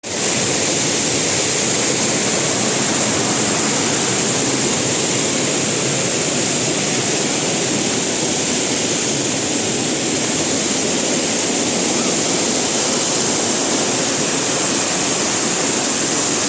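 Waterfall in monsoon flow, its water rushing down in a loud, steady noise that starts suddenly.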